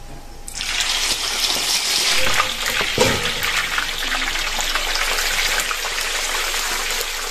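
Boiled pork leg going into hot oil in a wok: a sudden loud sizzle about half a second in, then steady crackling as it deep-fries.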